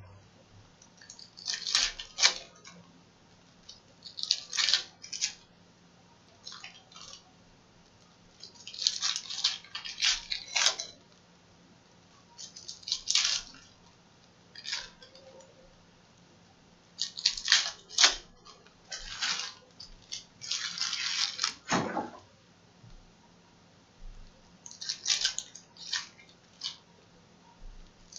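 Foil wrappers of Panini Prizm retail trading-card packs being torn open and crinkled by hand, in short crackly bursts every second or two with quiet gaps between.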